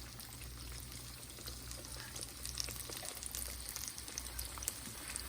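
Breaded green tomato slices frying in hot oil in a pan: a steady sizzle with scattered crackles and pops.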